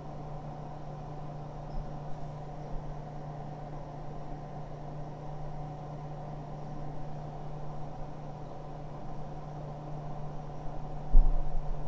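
Steady low hum of room background noise, with a fainter higher tone above it; a low thump near the end.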